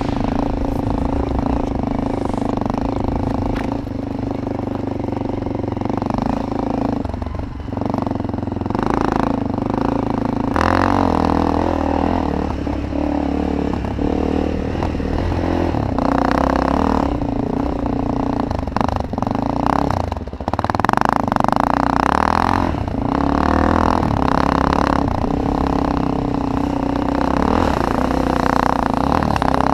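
Enduro motorcycle engine running as the bike is ridden along a dirt track, its pitch rising and falling several times as the throttle opens and closes.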